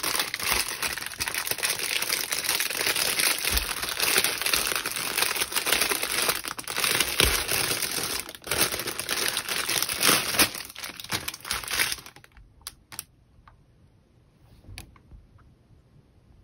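Plastic packaging crinkling as packets of diamond-painting drills are handled, stopping about twelve seconds in; a few faint clicks follow.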